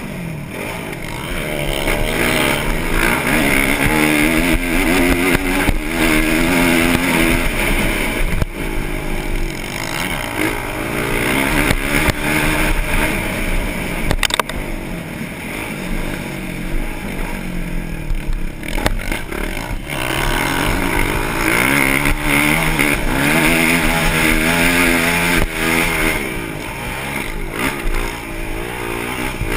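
Motocross bike engine heard close up from on board while racing, revving up in rising sweeps and dropping back again and again as the throttle is opened and closed.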